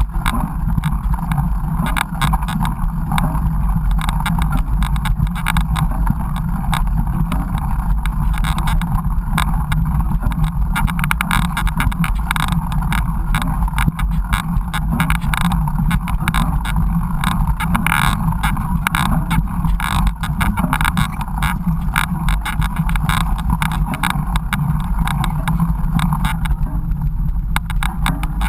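Steady wind rumble on the microphone with dense rattling and knocking from a mountain bike riding over a rough trail.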